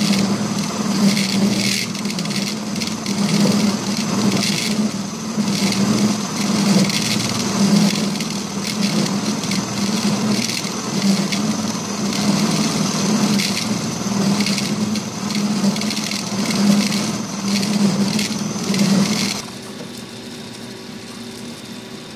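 Milling cutter on a horizontal milling machine's arbor cutting metal on the side of a T-nut blank, a steady pulsing grind with chips coming off. About three-quarters of the way through the cutting noise stops and the machine runs on quietly without cutting.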